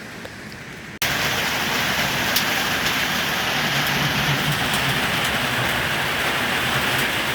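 Heavy rain falling steadily, a dense even hiss with scattered sharp drop ticks, starting abruptly about a second in after a quieter stretch.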